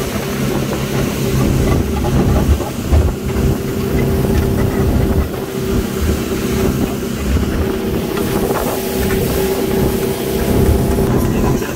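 Speedboat engine running steadily at high speed, about 70 km/h, with wind buffeting the microphone.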